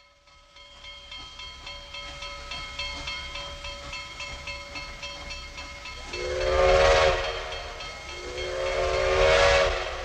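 Steam locomotive Grand Trunk Western No. 4070 sounding its steam whistle in two long blasts, about six and eight and a half seconds in. Each blast is a chord of several tones with a breathy hiss, over the low rumble of the approaching train.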